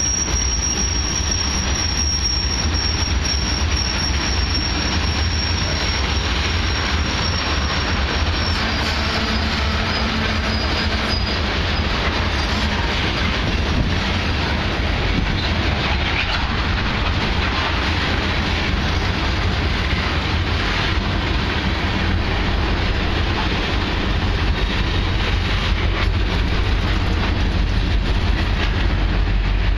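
Freight train of hopper cars rolling past close by: a steady rumble and rattle of steel wheels on the rails, with a thin high-pitched wheel squeal that fades out about ten seconds in.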